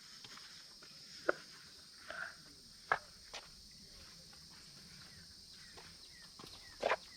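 Footsteps on a dirt trail, about four separate steps, over a steady high-pitched drone of insects.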